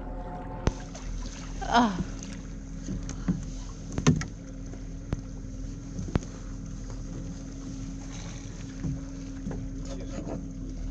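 Small boat's outboard motor idling steadily, with a few sharp knocks and a brief falling cry about two seconds in.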